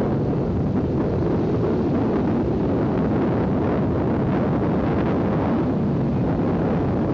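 Steady rumble of a moving vehicle's engine and road noise, with wind buffeting the microphone.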